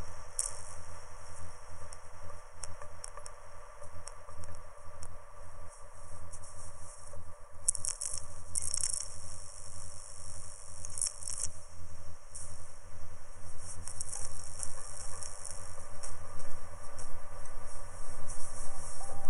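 Continuous crackling noise with many quick clicks and irregular bursts of high hiss.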